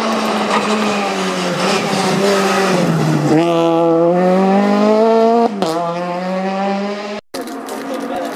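Peugeot 208 rally car engine revving hard: the pitch drops as it slows into a hairpin, then climbs steeply under full throttle, with one upshift about two seconds later before it climbs again. The sound cuts off abruptly near the end.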